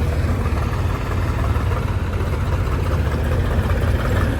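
Heavy diesel engine running steadily at idle, a deep even rumble.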